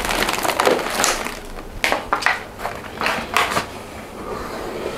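Irregular knocks, clicks and rustling of food packaging being handled on a kitchen counter, with a plastic tray of meat set down among them.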